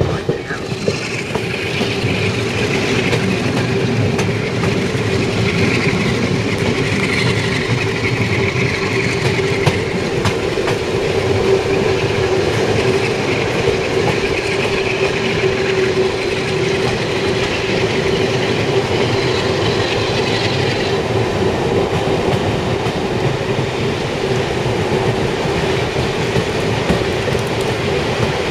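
Railway carriage rolling slowly through a station, heard from an open carriage window: steady running noise with a constant low hum, and a high hiss that fades out about three-quarters of the way through.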